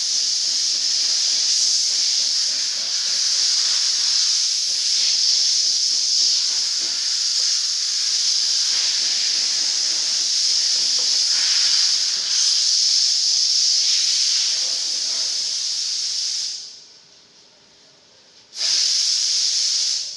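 Compressed air hissing steadily from a trigger-operated air gun, such as a paint spray gun or blow gun, cutting off about three-quarters of the way through and starting again for about a second and a half near the end.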